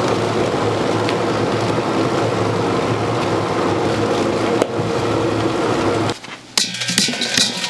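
Automatic fish cake production machine running with a steady mechanical hum and clatter. About six seconds in it cuts off abruptly, and a few sharp clinks and knocks follow.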